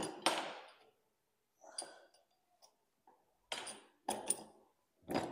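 Steel pipe and bench vise being handled as the pipe is set into the jaws: about five separate short knocks and clicks, some with a brief metallic ring.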